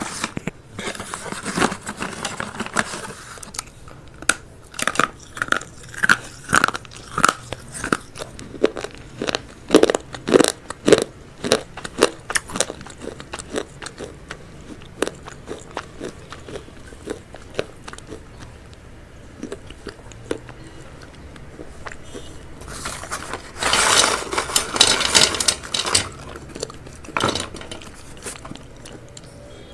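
Close-miked crunching, biting and chewing into a small clip-on microphone held at the mouth, in quick irregular crackles and clicks, with a longer crackly stretch near the end.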